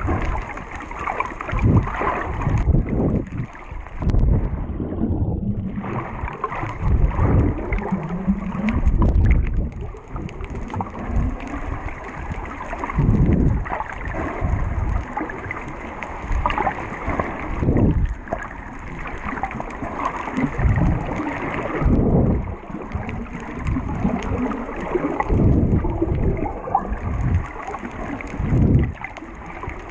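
Water sloshing and rushing against an underwater GoPro housing, muffled, in irregular surges every second or two.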